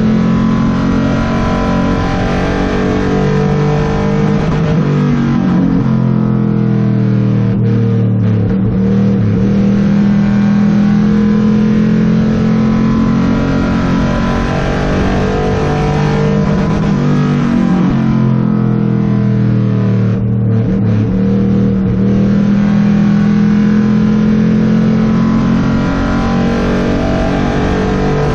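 Ford Crown Victoria stock car's V8 engine at racing speed, heard from inside the stripped-out cabin. It runs hard and steady, and twice, about twelve seconds apart, the note drops as the driver lifts for the turns, then climbs again back on the throttle.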